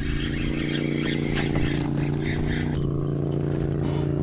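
An engine running steadily at an even, unchanging pitch.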